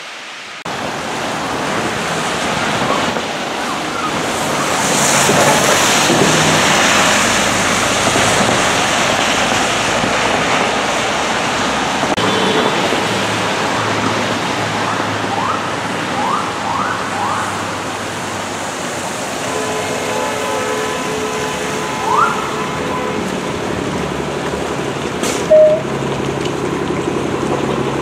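Traffic on a rain-wet street: a steady hiss of tyres on wet pavement that swells as vehicles pass, with city buses among them. A few short rising chirps come about halfway through and again later, and a sharp click comes near the end.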